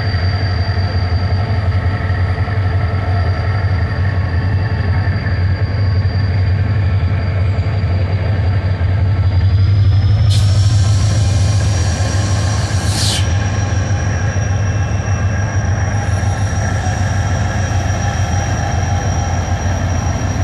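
Diesel-electric locomotive at the head of a passenger train pulling out, its engine running with a steady deep drone. About ten seconds in, the engine's tones rise in pitch as it takes power, with a few seconds of loud hissing at the same time.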